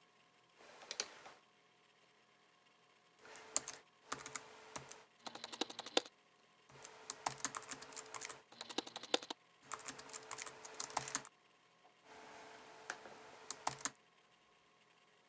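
Typing on a laptop keyboard in short spells of quick key clicks, each a second or two long, with brief pauses between them.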